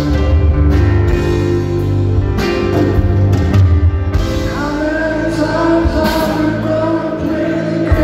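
Rock band playing live, led by sustained keyboard chords over deep bass notes. A man's singing voice with vibrato comes in about four seconds in.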